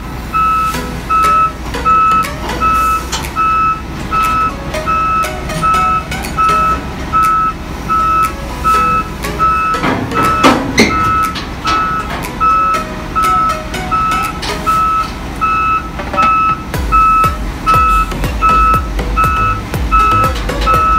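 Volvo EW205D wheeled excavator's travel alarm beeping steadily, a little under two beeps a second, as the machine drives down a trailer's loading ramps. Under it is a low diesel engine rumble that grows louder near the end, with one brief clatter about halfway through. Background music plays throughout.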